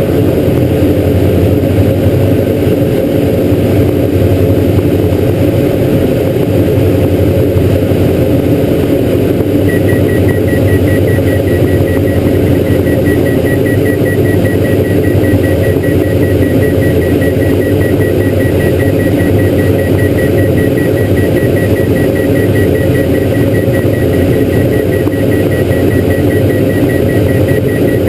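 Diamond DA42's twin piston engines and propellers running steadily in cruise, heard from inside the cockpit as a loud even drone. About ten seconds in, a high, rapidly pulsing tone joins and keeps going.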